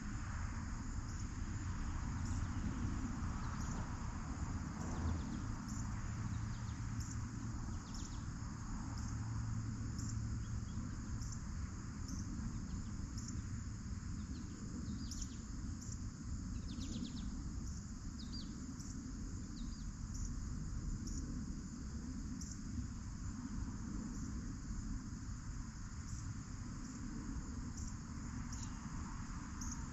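Steady outdoor insect chorus of crickets chirping in even pulses, with a few short, falling bird calls in the middle, over a low steady rumble.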